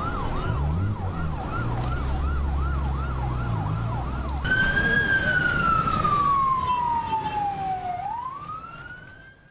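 Emergency vehicle siren sweeping fast up and down in a yelp, about three cycles a second, over a low hum. About four and a half seconds in it switches to a slow wail that falls for several seconds, then rises again and fades out near the end.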